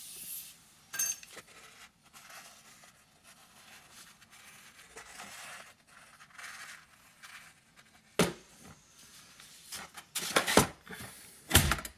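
A brief aerosol spray hiss at the start, then faint handling noise. From about eight seconds in come sharp knocks and hard plastic clatter as a Fein MultiMaster oscillating multitool is handled in its hard plastic carry case, with a heavy thump near the end.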